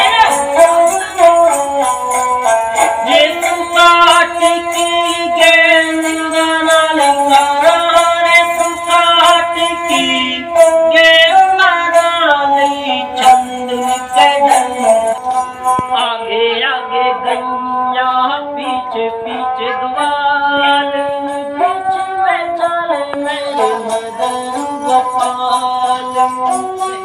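A man singing a bhajan and accompanying himself on a bowed folk fiddle with a bamboo neck, with a jingling of small bells in time with the bowing.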